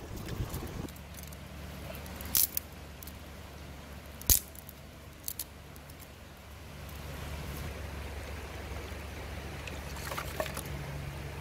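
Sticks and dry kindling being handled and snapped by hand for a small fire, giving a few sharp isolated snaps and knocks, the loudest about two and four seconds in, over a steady low background rush.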